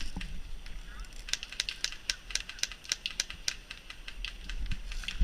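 Airsoft guns firing: a rapid, uneven series of sharp clicks in clusters, thinning out toward the end.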